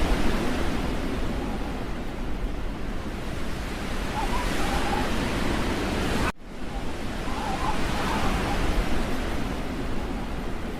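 Steady rushing noise of wind, with a brief sharp drop about six seconds in.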